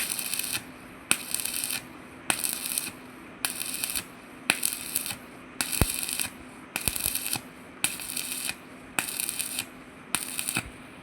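Stick-welding arc crackling in short bursts about once a second, each struck with a sharp click and broken off after about half a second: about ten bursts in a steady stitch rhythm. A steady low hum runs underneath.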